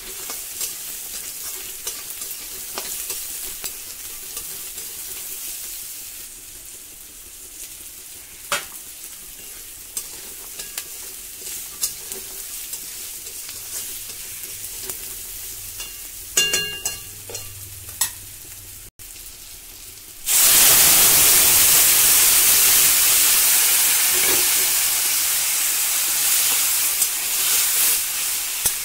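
Vegetables and fox nuts frying in oil in a metal kadai, with a metal spatula scraping and clicking against the pan. About two-thirds of the way through, a much louder, even hissing sizzle sets in as liquid dal meets the hot pan, and it keeps sizzling.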